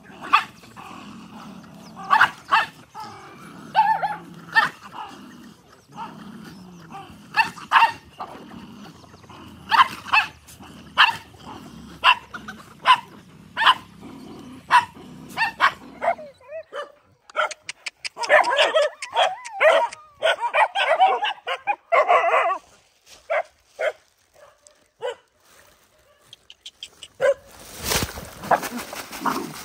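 Several dogs barking and snarling at one another as they squabble over a shared bowl of food, in short, sharp outbursts. There is a denser run of snarling barks past the middle and a louder burst near the end.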